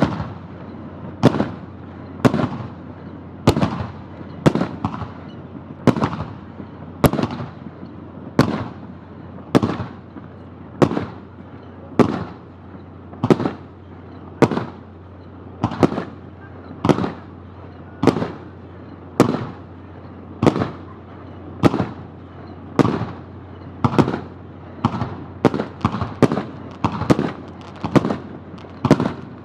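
Aerial fireworks shells bursting one after another, about one bang a second, each followed by a trailing echo. The bangs come quicker near the end, close to two a second.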